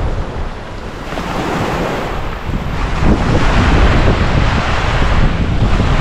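Ocean surf breaking and washing up on a sandy beach, with wind buffeting the microphone. The surf grows louder about three seconds in.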